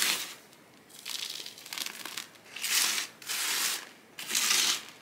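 Potting mix rustling and crunching as it is scooped and poured into a plant pot, in about five short bursts roughly a second apart.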